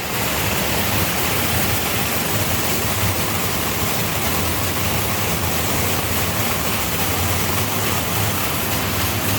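Scrap-metal color-sorting machine running with a low hum, under a steady dense hiss as mixed copper, brass and aluminum pieces pass through it.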